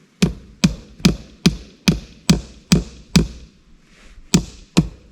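A tool striking hard again and again at an even pace of about two blows a second, each with a short ringing tail: eight blows, a pause of about a second, then the blows resume.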